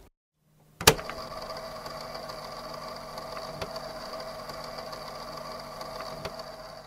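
Old film projector sound effect: a sharp click about a second in, then a steady mechanical whirring hum with faint ticking, until it cuts off.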